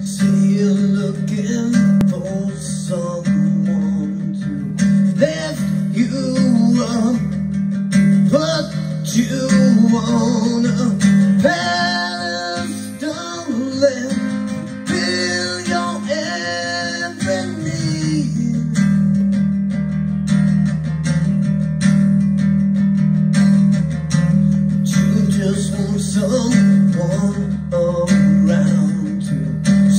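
A recorded song playing back from a music player: strummed acoustic guitar with a singing voice.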